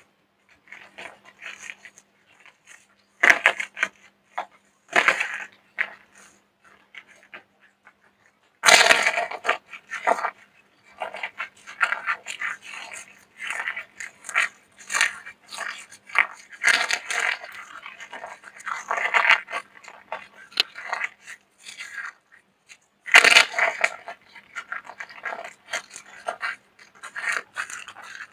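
Dry, brittle soap being crushed by hand, giving repeated crunching and crackling with a few sharper, louder crunches along the way.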